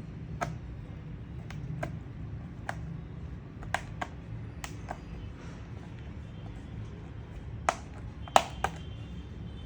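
Scattered light clicks and taps from screws and a screwdriver being handled on a laptop's plastic case, over a steady low hum. The two loudest taps come near the end.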